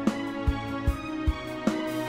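Instrumental background music with a steady low beat, about two and a half thumps a second, under sustained melodic tones.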